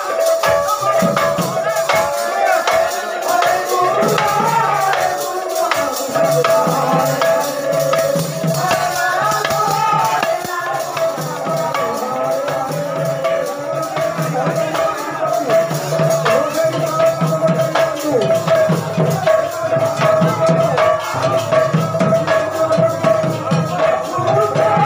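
Live kirtan music: a steady held drone note under a wavering melody line, with dense, fast rattling and jingling percussion throughout.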